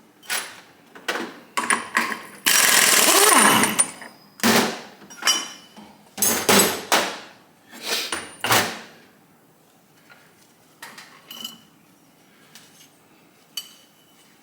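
Pneumatic impact wrench hammering with a big socket on a large engine nut, in a string of short bursts with one longer burst about two and a half seconds in. Light tool clicks follow near the end.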